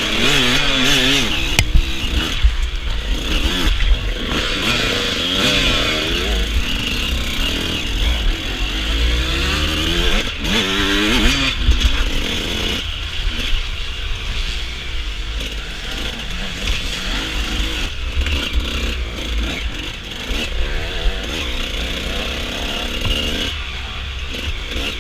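Suzuki RM125 two-stroke dirt bike engine revving up and down over and over as it is ridden hard through the woods, over a steady low rumble.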